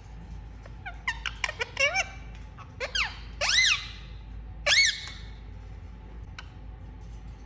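A parrot making a quick run of short squeaky chirps, then two louder, longer calls that rise and fall in pitch.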